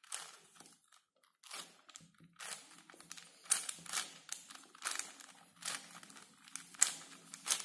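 Plastic layers of a 4x4 puzzle cube being twisted by hand through a move sequence: a string of short, irregular clacks and scrapes.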